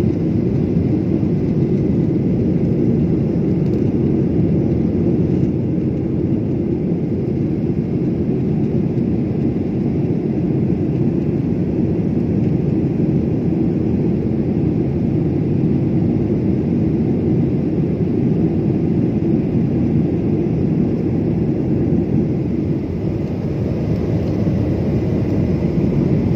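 Steady cabin noise of a passenger jet in flight: a loud, unchanging rumble of engines and airflow.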